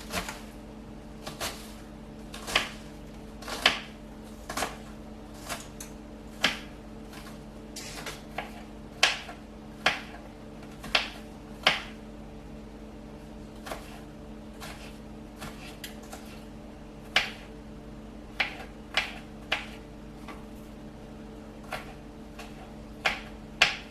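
Knife chopping an onion on a cutting board: irregular sharp knocks, roughly one a second with short pauses, over a steady low hum.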